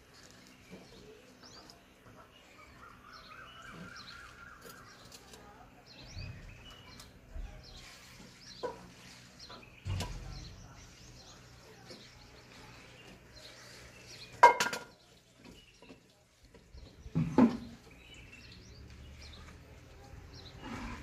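Small birds chirping again and again, with a short trill a few seconds in. Two louder, sudden sounds of unclear origin stand out in the second half.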